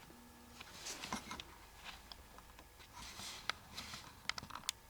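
Faint scattered clicks and rustles, with a brief low hum about a quarter of a second in.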